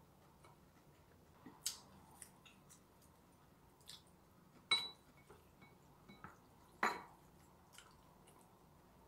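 Wooden chopsticks clicking and tapping against ceramic bowls during eating, with scattered small clicks. Two louder, briefly ringing clinks come about halfway through, some two seconds apart.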